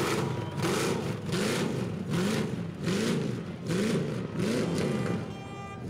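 Burnout car's engine revved hard over and over, its pitch climbing and dropping about once every two-thirds of a second, each rev with a loud blast of exhaust.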